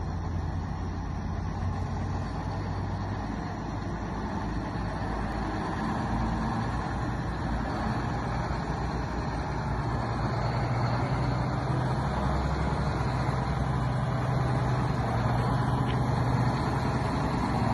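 Engine of a vintage Pirsch fire truck running as the truck drives slowly toward the listener. The low engine note grows gradually louder as it approaches.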